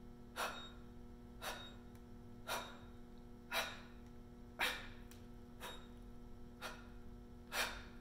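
A man's short, forceful breaths, about one a second, as he strains at an all-out isometric overhead press against an Isochain. A faint steady hum runs underneath.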